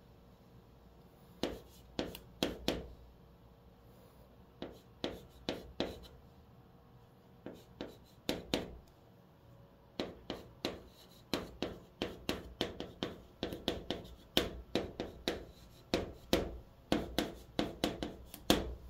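Chalk writing on a green chalkboard: short tapping and scratching strokes as a hanja character and Korean letters are written. The strokes come in quick clusters with short pauses between them and are thickest in the second half.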